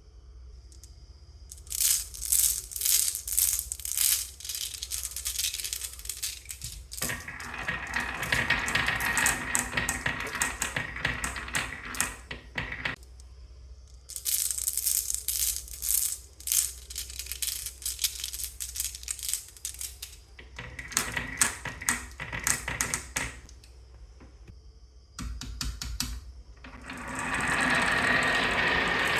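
Marbles clattering down a wooden marble-run track in bursts of rapid clicks, with stretches of steadier rolling noise between them. Near the end a steady mechanical whir of toy gears starts up.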